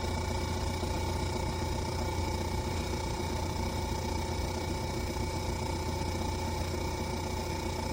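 A machine running with a steady, even hum made up of several held tones.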